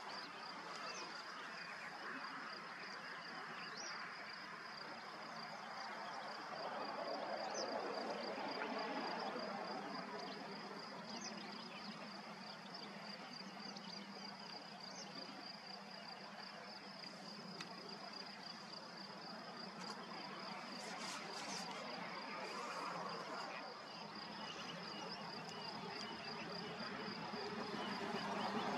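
An insect's steady, finely pulsing high trill of stridulation, like a cricket's, over a low background hum that grows louder near the end, with a few faint short chirps in the first half.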